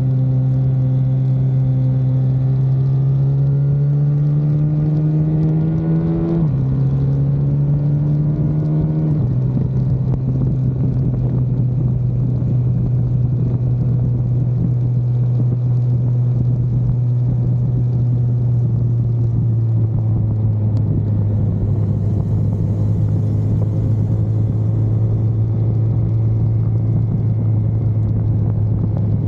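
Car engine under power on a race track: it revs up, drops in pitch with an upshift about six seconds in, climbs again, drops once more about nine seconds in, then holds a steady note for the rest of the time, easing slightly lower later on.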